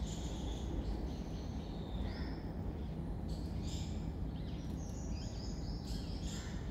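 Outdoor ambience of a steady low rumble with small birds chirping intermittently, the chirps coming more often in the second half.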